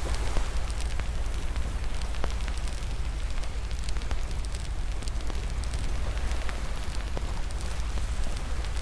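Wood fire burning in a fireplace, crackling with frequent small pops over a steady low rumble.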